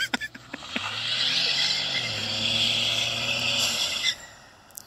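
Ford F-150's 2.7-litre twin-turbo EcoBoost V6 held at high revs in a burnout, its rear tyres spinning on the wet road with a strong hiss. A few sharp knocks come in the first second, and the sound cuts off suddenly about four seconds in.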